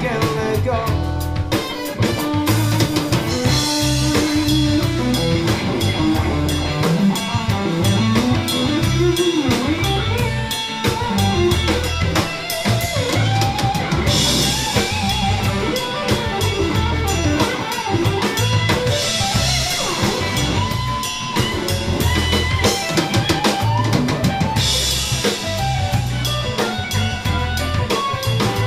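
Live rock band playing an instrumental passage with no singing: a drum kit with bass drum and snare driving a steady beat under electric guitars and bass.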